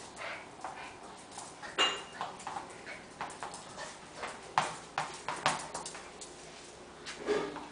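Miniature pinscher's claws clicking and skittering on a tiled floor as it scampers after a ball, a run of irregular sharp taps with a few louder knocks.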